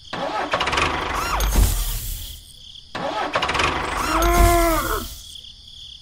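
Tractor engine revving in bursts of about two seconds, with brief pauses between. The pitch rises and falls within each burst.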